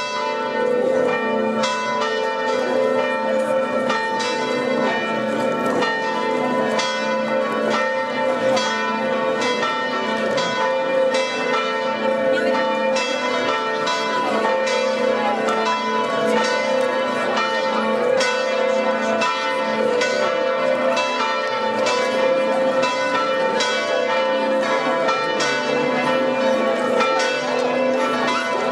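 Church bells ringing in a continuous peal, struck in a steady, even run with the tones ringing on between strokes.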